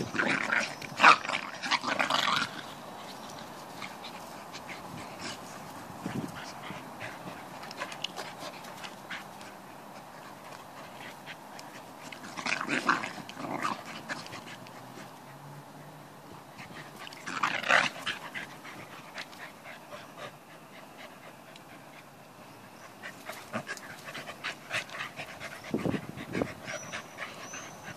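A Pembroke Welsh corgi and a Staffordshire bull terrier puppy play-wrestling, giving loud bursts of play-growling and strange rough vocal noises at the start, twice in the middle and once near the end. In between there are quieter scuffling sounds.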